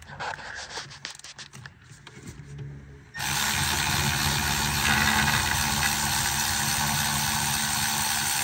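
Light clicks and rattles of a wrench working on the mirror's 10 mm mounting bolts. About three seconds in, a loud, steady machine noise starts suddenly and holds at an even level.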